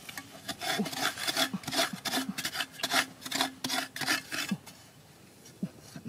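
Metal digging blade scraping and chipping into a hard sandy earth bank: a run of rough rasping strokes, several a second, that stops about four and a half seconds in.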